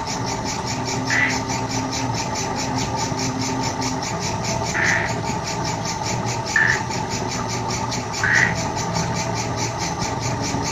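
A 16mm film projector running with the film's soundtrack: a steady mechanical hum with a fast, even pulse about five times a second. Over it are four short high-pitched calls, spaced a second or more apart.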